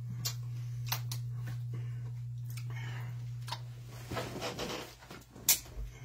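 Scattered light clicks and a brief rustle of small handling noises, over a steady low hum.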